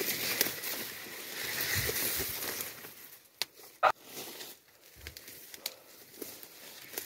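Grass and leaves rustling and crunching as someone pushes on foot through dense tall grass and undergrowth, with scattered clicks. The rustling eases off after about three seconds, and there is one short, loud snap just before the four-second mark.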